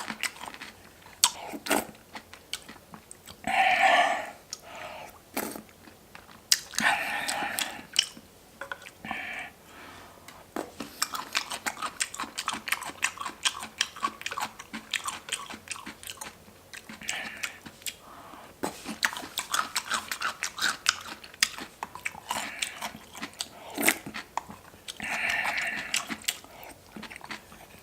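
Close-miked eating: steady chewing and biting with crisp, crunchy clicks, broken by several brief, louder breathy sounds.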